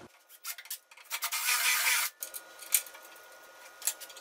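Cordless drill with a 1/4-inch bit drilling through the metal band saw tabletop: a short, high-pitched grinding burst of about a second, starting about a second in, followed by a few light clicks.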